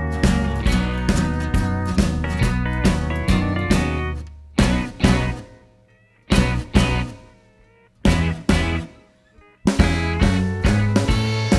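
Background music: a guitar-and-drums rock track with a steady beat. About four seconds in it drops to a sparse break of a few separate hits, and the full band comes back near the end.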